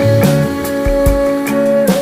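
Instrumental passage of a soft bossa-nova-tinged pop song: sustained chords with guitar and bass, no singing.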